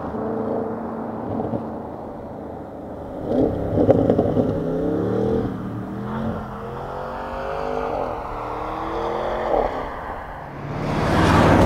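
Stock Audi RS7's twin-turbo 4.0-litre V8 exhaust revving under acceleration. The pitch climbs through the revs, dips briefly near the end, then comes back louder.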